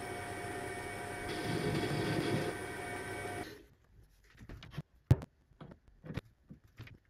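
Mini metal lathe (Paulimot PM190-V) running with a steady whine, louder and rougher for about a second as the tool cuts the workpiece. The spindle stops about three and a half seconds in, followed by scattered metallic clicks and knocks from handling the chuck, tool post and carriage.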